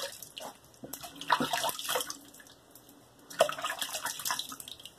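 Water splashed by hands at a sink, rinsing shaving lather off the face, in two bouts of splashing about a second each with a quiet pause between.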